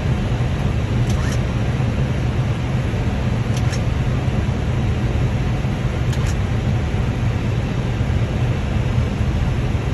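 Steady cockpit noise on the flight deck of an Airbus A320 on final approach: rushing airflow and engine sound with a strong low hum, unchanging throughout.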